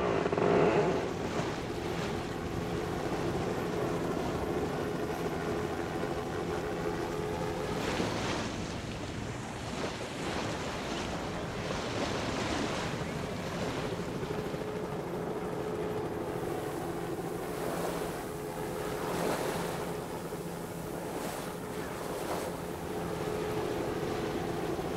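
Wind and water rushing past a racing sailboat, with a steady engine hum underneath.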